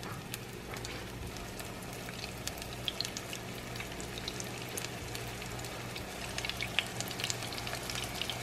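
Minced beef-and-pork patties sizzling in very hot oil in a grill pan: a steady fizz with scattered crackling pops that come more often from about six seconds in.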